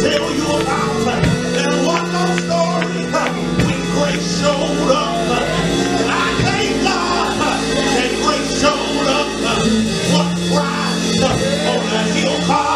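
Church organ holding sustained chords under a preacher's sung, chanted delivery into the microphone.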